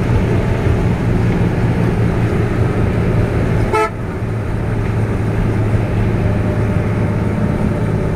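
Steady engine drone and road noise inside a moving road vehicle crossing a bridge. About four seconds in, a short horn toot sounds, and the drone drops slightly afterwards.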